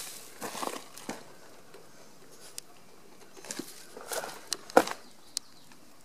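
Footsteps crunching and scuffing on gravel and dry dirt: a few irregular steps, the sharpest crunch a little before the end.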